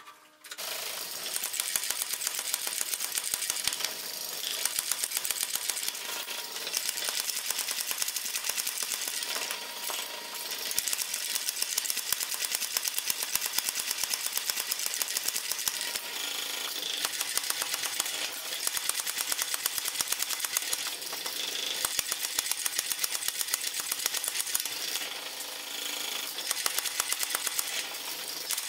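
Mechanical power hammer rapidly pounding a red-hot steel bar between its dies: a fast, continuous run of metal blows that starts about half a second in and eases off briefly every few seconds as the bar is moved.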